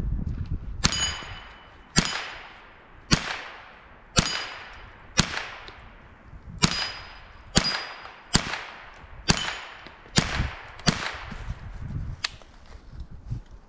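Handgun fired about twelve times at a steady pace, roughly one shot a second, several shots followed by a short high ringing tone as of a hit on a metal target.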